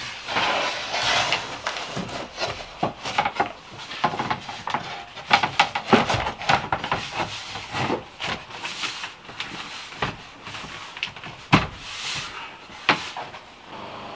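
Birch plywood panels being handled and fitted against a van wall: irregular wooden knocks, taps and scraping, with a couple of sharper knocks about six and eleven and a half seconds in.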